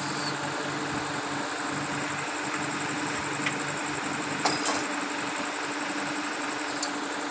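A motor running with a steady low hum, with a constant high-pitched whine above it and a couple of faint clicks partway through.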